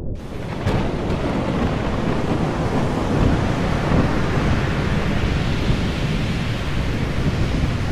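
Storm-at-sea sound effect: a steady, dense rush of heavy waves and wind over a deep rumble, swelling in abruptly at the start with a short crack within the first second.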